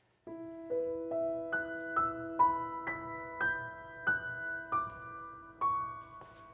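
Background score: a slow, gentle piano melody of single notes, struck about every half second and left to ring over a held low note.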